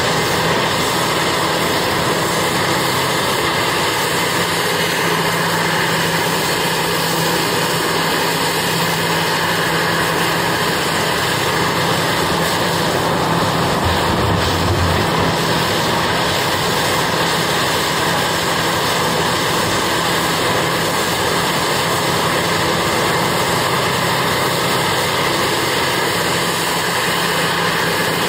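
Heavy diesel engines of a Cat 6015B mining excavator and a Cat 785 haul truck running steadily, with a brief low rumble about halfway through.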